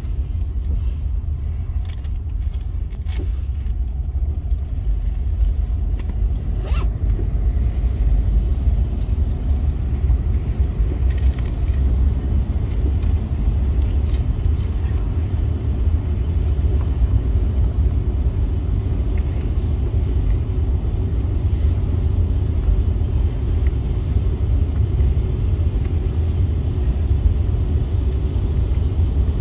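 Steady low road rumble of a car driving on a wet expressway, heard inside the cabin, with a few faint clicks in the first several seconds.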